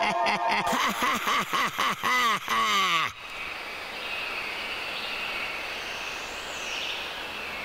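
Cartoon man's loud, gleeful laugh, a rapid string of "ha-ha-ha" that stops abruptly about three seconds in. A steady, soft rushing background with faint high tones follows.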